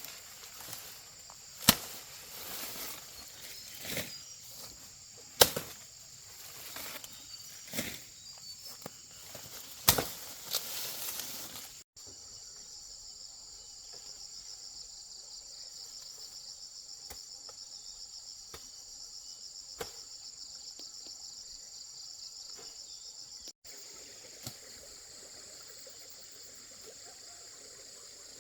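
Insects chirring steadily in a high, thin band, with a fast pulsing trill through the middle stretch. In the first part, sharp loud knocks or snaps come every second or two, then stop.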